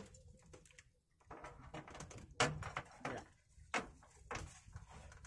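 Several scattered knocks and thumps on a wooden outrigger boat, between quieter handling rustles; the loudest knock comes about halfway through.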